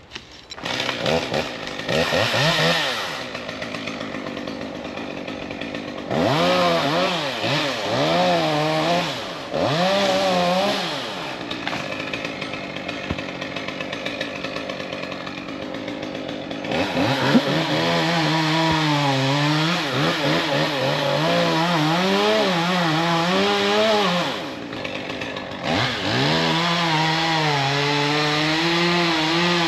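Chainsaw cutting into a dead oak, its engine revving and dropping in pitch under load in repeated swells. It eases back to a lower, quieter run a few times between cuts.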